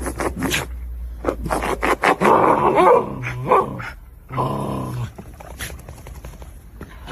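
A dog vocalizing in several short calls that rise and fall in pitch, after a run of sharp clicks and knocks in the first two seconds.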